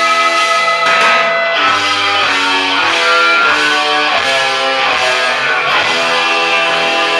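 Electric guitar played through an amplifier: a lead line of single notes, with long held notes at the start and near the end and a quicker run of changing notes in between.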